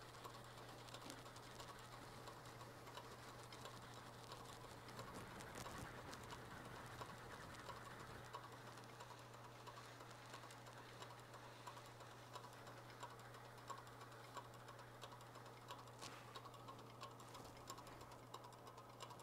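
Faint, steady low hum of a woodturning lathe running, with faint scattered light ticks, as a wet micro mesh pad is worked over the spinning CA-finished platter.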